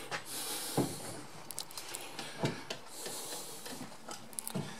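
Slow footsteps on a wooden floor, a few dull knocks about one to two seconds apart, with light clicks and passing hissy rustle from a hand-held camera being carried.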